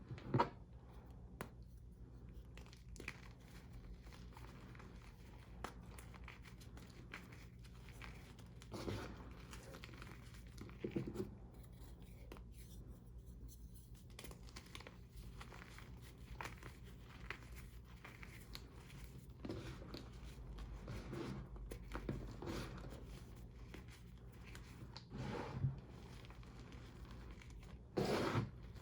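Reformed gym chalk being crushed, giving irregular crunches and crumbling crackles every few seconds; the chalk is not fully dried, which makes it crunchy. A faint steady low hum lies underneath.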